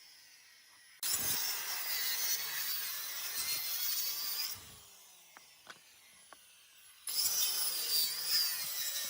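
Bosch GKS 7000 circular saw cutting wood in two passes: the first starts about a second in and stops after about three and a half seconds, the second starts near the end, with a few small clicks in the quiet gap between.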